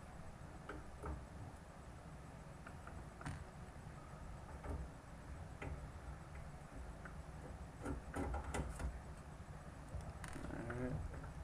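Scattered small clicks and ticks of a T8 Torx screwdriver working small screws out of an Xbox 360 Slim's casing, with a quick cluster of sharper clicks about eight seconds in.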